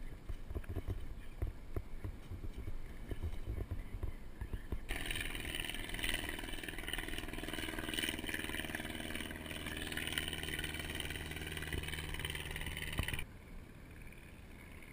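Low, irregular rumbling and knocking at first. About five seconds in, a steady mechanical drone cuts in and runs for about eight seconds, then stops abruptly.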